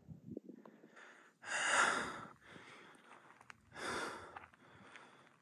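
A hiker breathing hard, winded from a steep uphill climb: two heavy breaths about two seconds apart, the first the louder.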